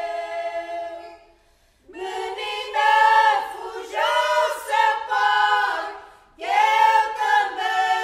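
Women's choir singing a cappella in the polyphonic cantares style of Portugal's Minho region. A held chord dies away about a second in, and after a short pause the voices come back with a new phrase, breaking off briefly again about six seconds in.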